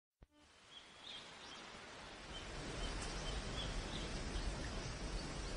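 Outdoor ambience fading in: a steady rushing noise with a low rumble, dotted with short high chirps of small birds.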